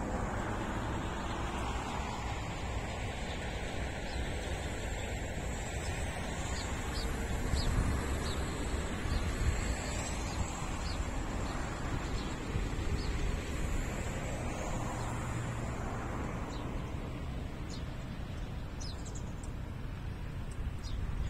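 Steady wind blowing, with low rumble on the microphone, and a few short, high bird chirps scattered through it.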